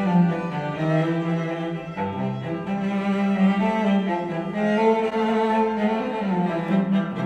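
Classical string music led by a cello, played through a pair of Yamaha HS8 studio monitors and recorded by a microphone in the room. Near the end the playback switches to a pair of PreSonus Eris E8 XT monitors.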